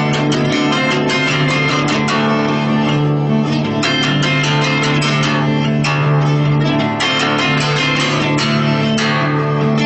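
Acoustic guitar and hammered dulcimer playing a song together as a duo, the dulcimer's struck strings ringing over the guitar's steady strumming.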